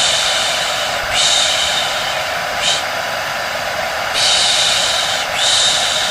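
A hair dryer running steadily, with a 'shh' shushing sound repeated over it about five times, each shush lasting up to a second and one of them brief, as a soothing sound for settling a baby to sleep.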